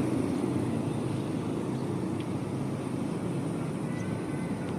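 Steady low rumble of a vehicle engine running, easing off slightly over the few seconds.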